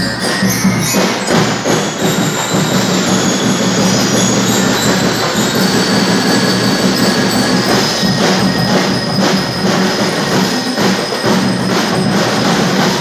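School drum and lyre band playing: rapid snare drumming with bass drum beats and the steady ringing notes of bell lyres over them.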